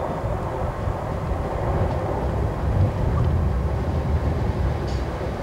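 Class 321 electric multiple unit running into the platform: a steady low rumble of wheels and traction equipment, growing a little louder as it comes closer.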